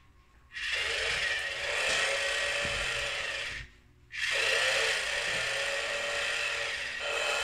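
Battery-powered toy chainsaw running with a steady buzz. It cuts out twice briefly, right at the start and about four seconds in, then starts up again.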